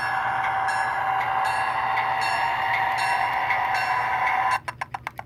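An HO-scale SD40-2 model locomotive's sound decoder plays a diesel engine sound with the bell ringing about twice a second. The sound cuts off suddenly near the end, followed by a few sharp clicks. The unit had been left powered up and set to run, and its keep-alive held the sound briefly before it cut out.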